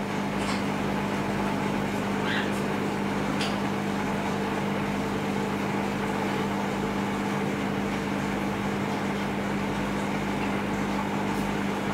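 A steady machine hum with a constant low tone, a few faint short high sounds near the start.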